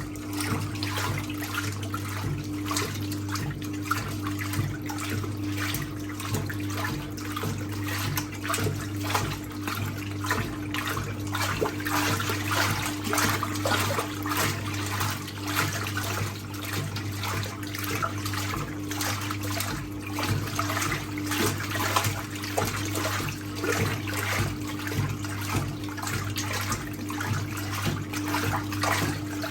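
1958 Hotpoint Empress washing machine agitating a load of towels in rinse water: continuous swishing and sloshing over the steady hum of its electric motor.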